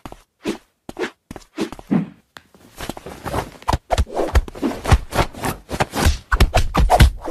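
Quick, irregular soft thumps and rustles of a hand and a cat's paws slapping at each other on bedding. They are sparse at first and come faster and louder after about two and a half seconds.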